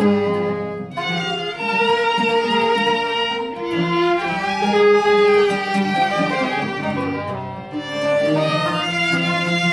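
Arabic music: an oud plucked together with a melody line of long held notes that shift in pitch every second or so.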